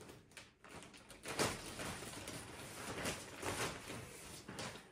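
Plastic shopping bag rustling and crinkling in irregular bursts as a hand rummages inside it for the next item.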